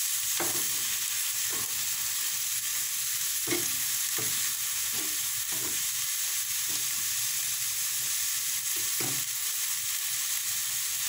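Frozen spinach sizzling in a non-stick frying pan as it is stirred and broken up with a wooden spatula and a metal fork: a steady sizzle with irregular scrapes and taps, about one a second, where the utensils hit the pan.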